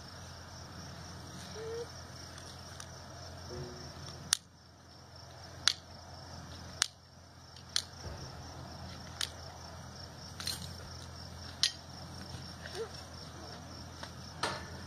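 Hoof nippers snapping through a horse's hind hoof wall during a trim: about eight sharp snaps, a second or so apart, with crickets trilling steadily behind.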